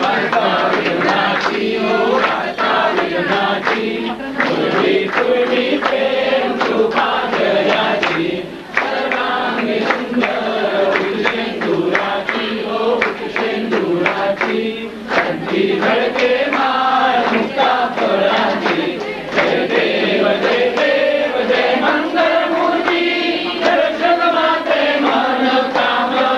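A group of devotees singing an aarti hymn together in chorus, over a run of sharp repeated beats.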